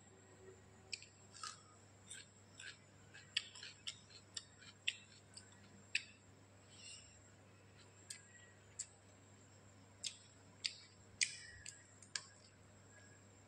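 Close-miked eating sounds of a person eating rice by hand: irregular, sharp, wet clicks and smacks from the mouth while chewing, roughly one every half second to a second.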